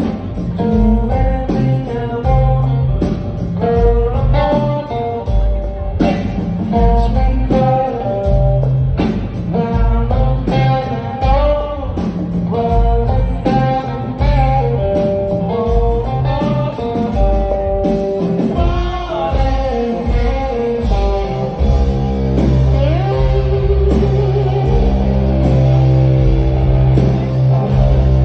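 Live blues-rock band playing loud through a concert PA, recorded from within the audience: an electric guitar riff over a drum kit, with a man singing.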